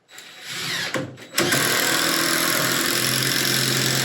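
A power drill driving a screw into wood, starting with a steady run about a second and a half in after some brief handling noise.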